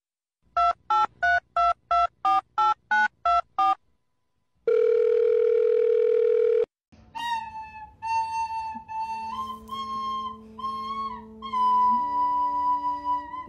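Telephone keypad dialing beeps, about ten quick two-tone presses, dubbed as a sound effect over a paw being pressed like buttons. A steady phone tone follows for about two seconds, then a flute-like melody plays to the end.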